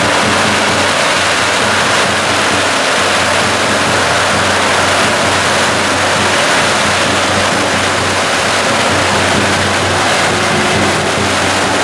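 Long strings of firecrackers going off without a break, a dense, steady crackle, with a low hum underneath.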